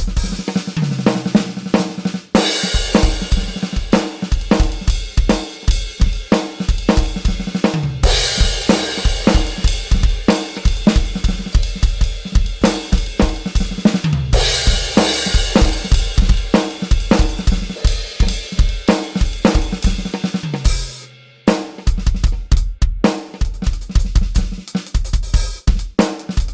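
Drum kit played in a steady groove: kick and snare on a regular beat under a cymbal wash. Tom fills that fall in pitch come about every six seconds, and the kit stops briefly about three-quarters of the way through.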